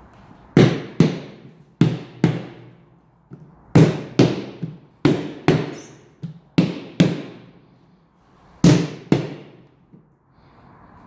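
Hands slapping down on the back glass of a 1970 Nissan 240Z hatch to seat it in its rubber weatherstrip: sharp thumps, mostly in pairs about half a second apart, six pairs in all.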